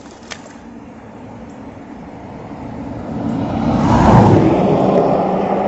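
A road vehicle passing by, its noise swelling to the loudest point about four seconds in and then slowly fading. There is a short sharp click near the start.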